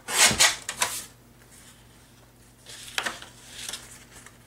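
Paper scraping and rustling on a Tim Holtz Tonic paper trimmer as a sheet is trimmed and slid away. The loudest scrape is in the first second, and a softer rustle follows about three seconds in.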